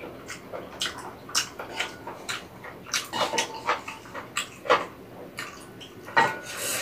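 Close-up eating sounds of soupy ramen and rice cakes: wet chewing with many sharp mouth clicks, and a longer slurp near the end. Wooden chopsticks knock against the pot as noodles are lifted from the broth.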